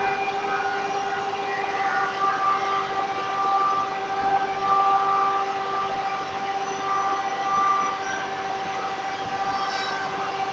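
Large circular saw running with a steady whine while it cuts pieces of balsa wood, a higher tone coming and going several times over the steady one.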